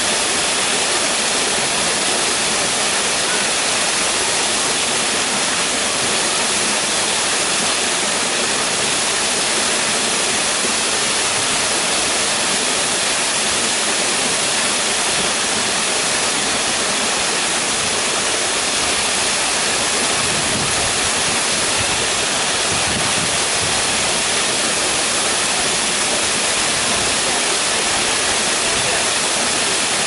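Small waterfall pouring over a rock face and splashing into a pond: a steady, unbroken rushing splash.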